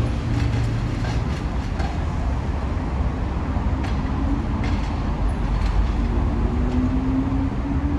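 Train rolling slowly through a station yard, pushed or pulled by a ChME3 diesel shunter: a steady low rumble with a diesel engine hum that fades about a second in, a few light clicks of wheels over rail joints, and a tone that rises slightly near the end.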